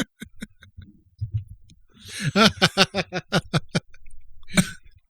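Laughter: a run of short rhythmic 'ha-ha' bursts, about five a second, with one last louder burst near the end.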